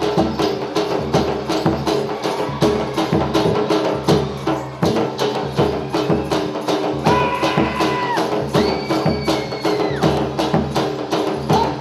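Gujarati folk dance music: a fast, steady beat of sharp clicking percussion, about four strokes a second, over a steady drone, with a melody that holds long notes about two-thirds of the way through.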